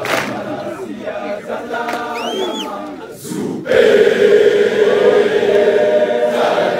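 A massed crowd of schoolboys singing a gwijo, a South African rugby-supporters' chant song, in full-throated unison. After a brief dip about halfway through, the crowd comes back in loudly on one long held note.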